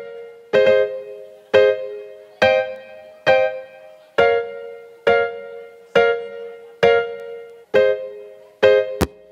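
Electronic keyboard playing in a piano voice: a chord struck about once a second, each one dying away before the next, the chord shifting now and then. A sharp click sounds near the end.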